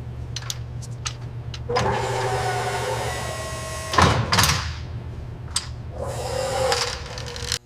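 A small electric motor whirring in two short bursts over a steady low hum, with scattered clicks and a loud knock followed by a rattle about four seconds in.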